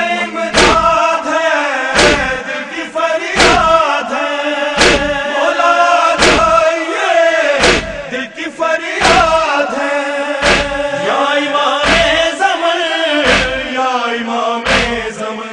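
Male voices chanting a noha melody over a steady low drone, with unison chest-beating (matam) striking sharply in a slow, even rhythm about once every one and a half seconds.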